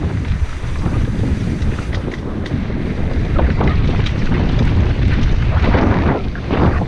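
Mountain bike ridden fast down a dry dirt trail: wind buffeting the microphone over tyre rumble, with scattered clicks and rattles from the bike. A few louder rushes of noise come near the end.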